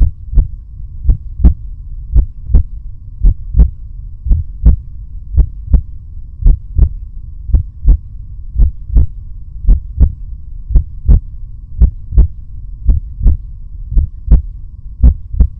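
Heartbeat sound effect: paired low thumps in a steady lub-dub rhythm, about one beat a second, over a low steady hum.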